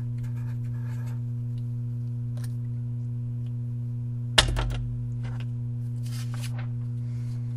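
Steady electrical hum, with faint pen scratching on paper in the first second. About four and a half seconds in comes a sharp thump, followed by paper rustling and sliding as a sheet is moved.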